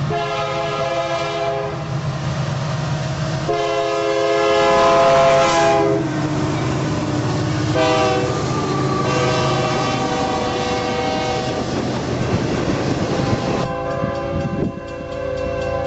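Diesel freight locomotive's multi-note air horn sounding a chord in blasts: one, a longer one, then a short toot running into a long blast, the long-long-short-long pattern of a grade-crossing signal. A steady low rumble of the train runs beneath, and a different, lower horn chord takes over near the end.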